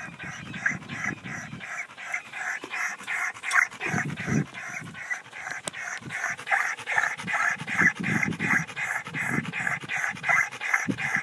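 A dog panting hard and fast, an even rhythm of about four quick breaths a second.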